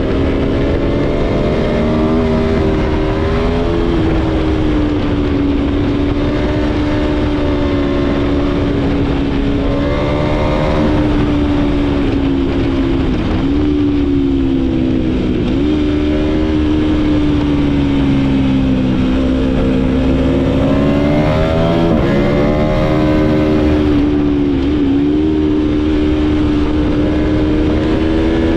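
Aprilia Tuono V4's V4 engine heard on board while riding, running at a fairly steady pitch under way. Several times the note dips sharply and swoops back up, as with gear changes or the throttle rolled off and on.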